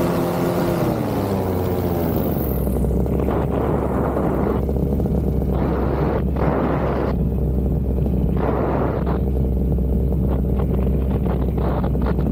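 Paramotor engine and propeller in flight, throttled back so its pitch falls over the first two seconds or so, then running steadily at lower power. Wind buffets the microphone throughout.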